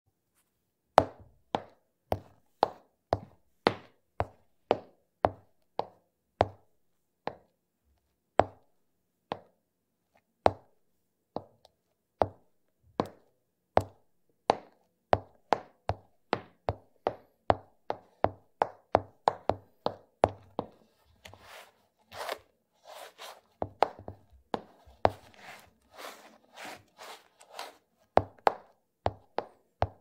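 Cartoon walking sound effect: footsteps as short, sharp taps in a walking rhythm of about two a second, with gaps and changes of pace. Between them, for a stretch a few seconds from the end, come softer, noisier sounds.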